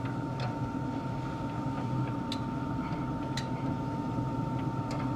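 Metal tongs clicking lightly against the pellet grill's grate a handful of times as beef ribs are flipped, over a steady low hum.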